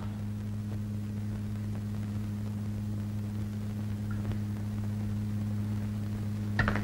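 Steady low electrical hum with faint hiss on an old film soundtrack, with a soft knock about four seconds in and a short burst of clicks near the end.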